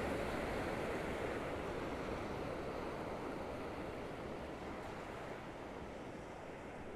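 Ocean surf washing onto the beach, a steady rushing wash that slowly fades down.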